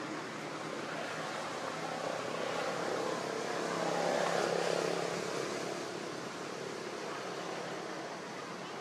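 A passing engine: a steady mechanical drone that swells to its loudest about four seconds in and then fades away.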